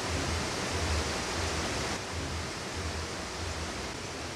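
Steady rush of running water, with soft low thuds recurring at a fairly even pace underneath.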